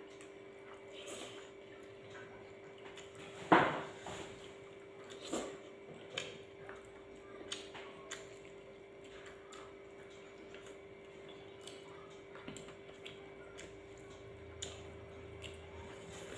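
Bowls and dishes knocking and clinking on a table as people eat by hand, with one sharp knock about three and a half seconds in and several fainter clicks after it, over a steady hum.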